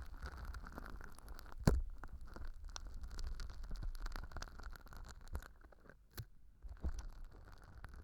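Tweezers working a stiff, sticky slime mixed with fine glitter directly on a bare ear-shaped ASMR microphone: a close, continuous crackle of small sticky clicks and squelches. A sharper click comes just under two seconds in and another about six seconds in.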